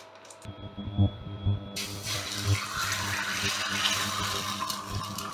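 Egg frying in hot oil in a frying pan, sizzling with a steady hiss that starts abruptly about two seconds in.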